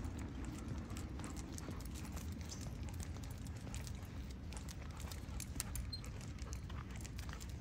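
Walking with a leashed dog on pavement: faint footsteps and many small clicks and jingles, as of claws and collar or harness hardware, over a steady low rumble.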